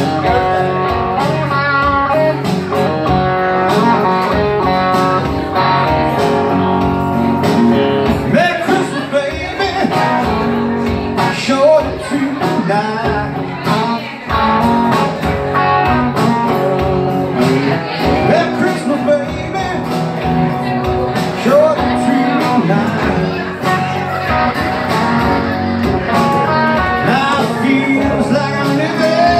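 Live blues played on an electric guitar and an acoustic-electric guitar, with a man singing.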